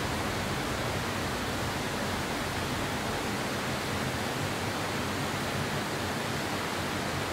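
Steady rushing of flowing water from a nearby stream, an even hiss with no breaks or distinct events.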